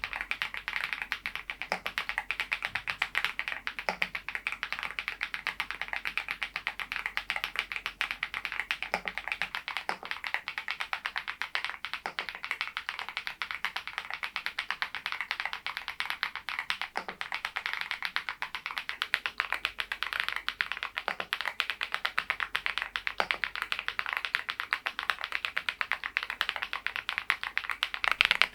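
Fast, continuous typing on a Mongdol87 mechanical keyboard fitted with thick PBT Cherry-profile keycaps: a dense, even stream of key clacks.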